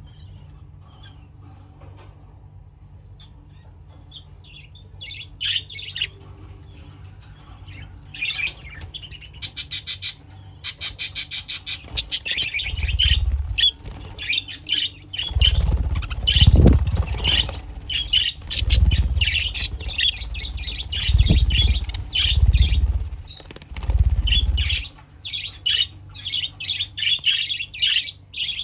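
Budgerigars chirping and squawking in quick, scattered calls. The calls start a few seconds in, with a fast chattering run near the start. Through the middle, loud low thuds and rumbles sound beneath them.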